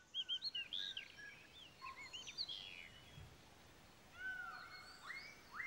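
Several forest birds calling, faint: a quick run of short, arched chirps in the first couple of seconds, then from about four seconds in, repeated whistles that sweep up and hold a steady note.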